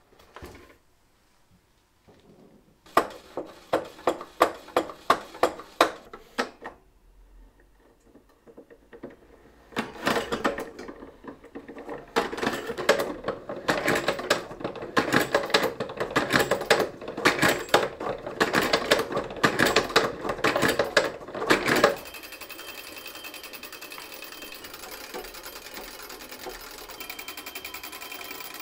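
Restored antique French mechanical horse racing game running. A short run of sharp, evenly spaced clicks comes first. Then the mechanism clatters fast and loud while the horses spin round the track, and about two-thirds of the way in it settles into a steady, even whir.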